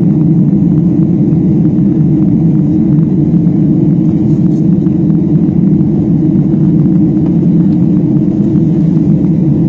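Wing-mounted engine of a propeller airplane running steadily, heard from inside the cabin as a loud, even rumble while the plane rolls along the runway after landing.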